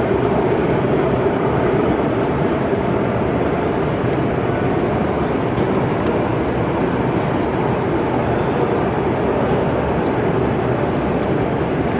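0 gauge model train running on the layout's track, a steady, even rumble with no pauses.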